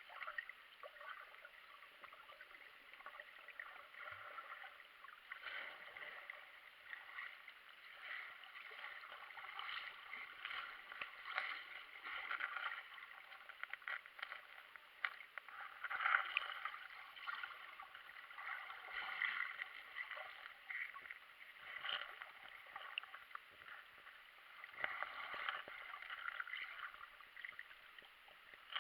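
Faint moving water, gurgling and trickling unevenly, swelling and fading.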